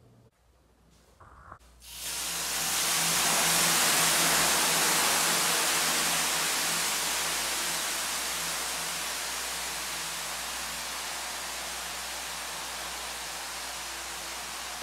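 Water hitting hot sauna stones: steam hisses loudly, starting suddenly about two seconds in and slowly fading away.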